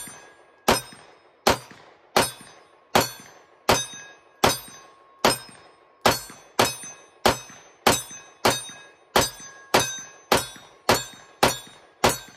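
Dan Wesson DWX pistol firing a long string of single shots, about 18 in all, each followed by a short ringing decay. The shots come at a steady pace of about one every three-quarters of a second, then speed up to about two a second from about halfway in.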